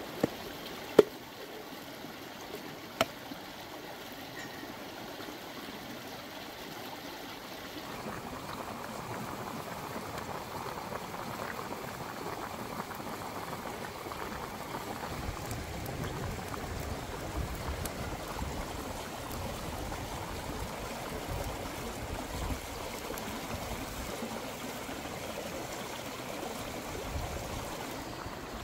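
A wood cooking fire crackling, with three sharp pops in the first three seconds. Then a large pot of pork leg boiling hard, its bubbling growing stronger from about halfway, over the steady rush of a stream.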